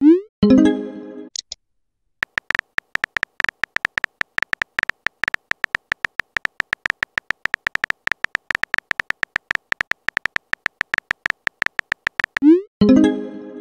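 Simulated phone-keyboard typing sound effect: a long run of rapid, sharp key clicks. At the start and again near the end it breaks off for a short rising swoosh and tone, the chat app's message-sent sound.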